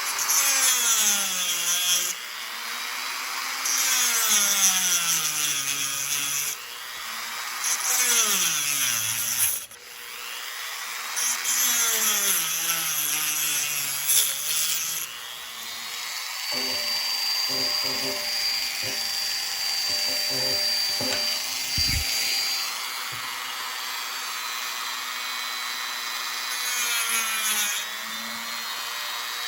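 Power sander running, its motor pitch dropping and recovering as the wood workpiece is pressed against it. Each press brings gritty abrasive hiss, repeated every few seconds.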